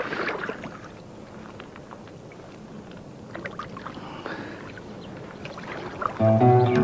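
Faint splashing and sloshing of water with a few small knocks, then acoustic guitar music starting near the end.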